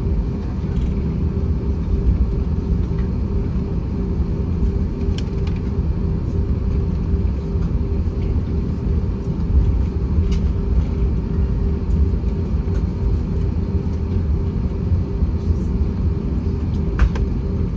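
Steady low cabin rumble of an Airbus A321-231 on the ground, its IAE V2500 engines at low thrust, with a steady hum and a few light knocks.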